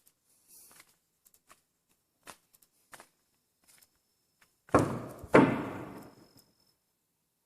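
A few faint ticks and clicks, then two loud knocks about half a second apart, each ringing out for about a second.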